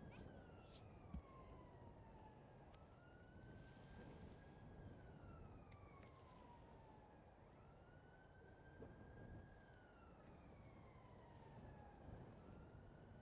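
Faint wailing siren of a distant emergency vehicle, its pitch slowly rising and falling about once every five seconds.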